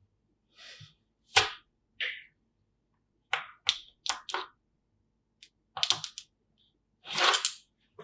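Small magnetic balls clicking and snapping together in short, irregular bursts, with a longer run of rattling clicks about seven seconds in.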